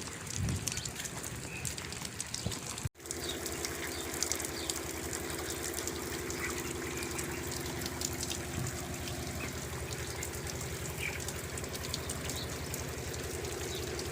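Broiler chickens peeping and calling over a steady hiss of water spray from sprinkler cooling, with a steady low hum. The sound cuts out for an instant about three seconds in.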